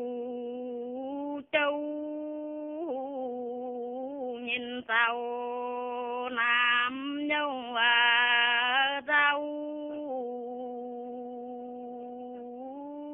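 An elderly woman singing a Dao folk song solo in the hát đối reply style, drawing out long held notes that waver and slide in pitch, with short pauses for breath.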